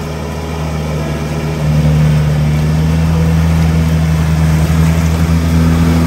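A 4x4's engine running under way, a steady low drone that gets louder about a second and a half in.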